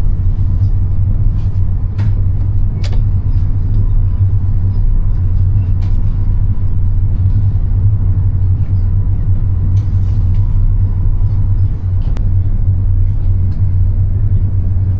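Steady low rumble of a high-speed EMU train running at speed, heard from inside the passenger car. A few faint clicks come through it.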